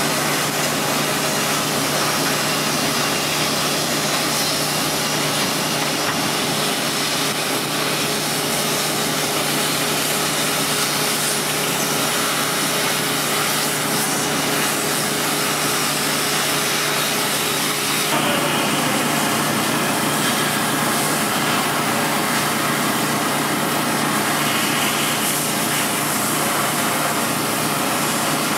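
Steel-cutting torch hissing steadily as it cuts through the bridge's steel girders, with an engine running underneath; the sound shifts abruptly partway through.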